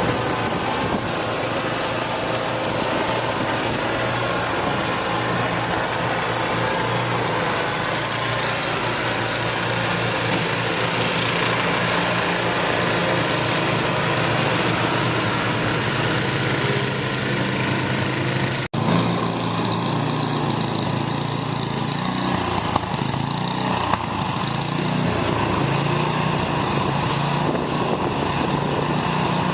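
An engine running steadily at a constant pitch, with a brief break about two-thirds of the way through.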